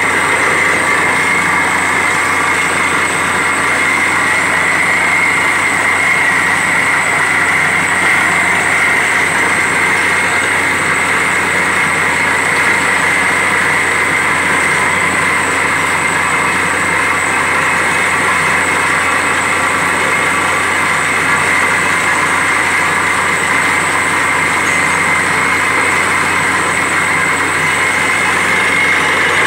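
Truck-mounted borewell drilling rig drilling. Its engine and air compressor run loud and steady, with the rush of compressed air blowing dust and rock cuttings out of the bore.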